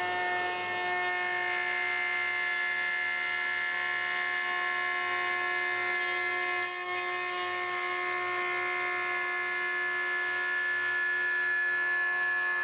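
High-speed spindle of a 5-axis CNC wood milling machine running with a steady multi-tone whine as its bit cuts a curved wooden chair part. A brief rise in hiss comes about six seconds in.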